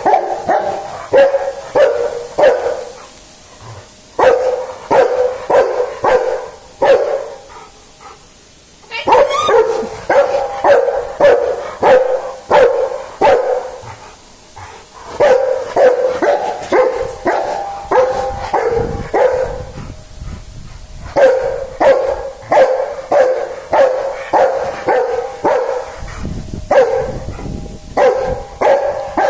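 Rottweiler barking in rapid runs of short barks, about two to three a second, broken by a few short pauses.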